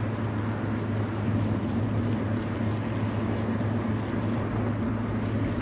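Wind blowing steadily across the microphone: a constant low rumble with hiss and no distinct events.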